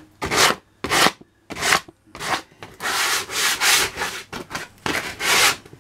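A sheet of coarse 60-grit sandpaper rubbed by hand across rough pallet wood in separate back-and-forth strokes, a little under two a second, with short gaps between.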